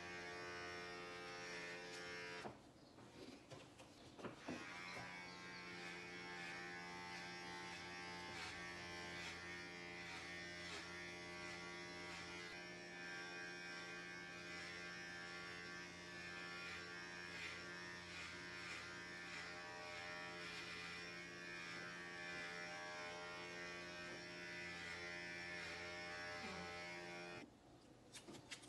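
Electric hair clippers buzzing steadily as they cut a man's short hair. The buzz cuts out about two and a half seconds in, starts again a couple of seconds later, and stops shortly before the end.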